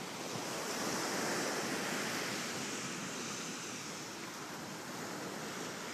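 Surf breaking on a sandy beach: a steady wash of waves that swells about a second in and then slowly eases off.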